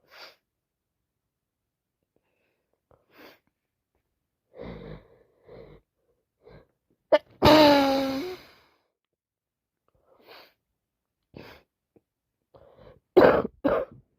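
A woman with a heavy cold sniffling in short faint breaths, then one loud wet sneeze with a voiced cry falling in pitch about halfway through. Near the end come two more short loud bursts, a cough or a second sneeze.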